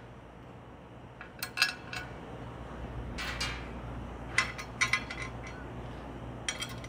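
Carriage bolts clinking against the metal plate of a belt grinder's tilting mount as they are pushed up through its slots by hand: a scatter of light metallic clicks and clinks, one at about three seconds ringing a little longer.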